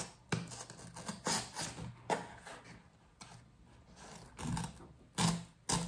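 A blade slitting the tape on a cardboard shipping box, with irregular short scrapes, rustles and knocks of the cardboard being cut and handled.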